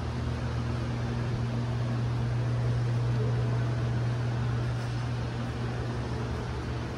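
A steady low mechanical hum under an even hiss, swelling slightly midway.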